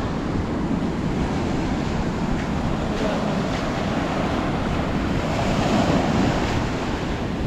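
Strong Pacific surf breaking on a rocky shore, a steady wash of waves that swells a little about six seconds in, with wind buffeting the microphone.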